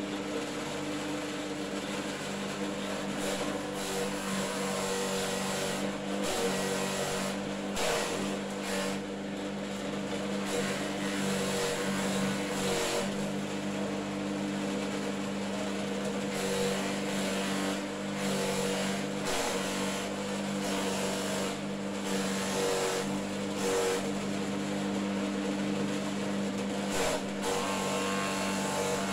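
A motor running at one steady speed with a constant hum, with uneven rushes of noise over it.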